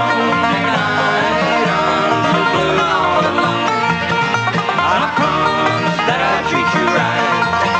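Bluegrass band playing live on stage, acoustic string instruments picking a fast tune.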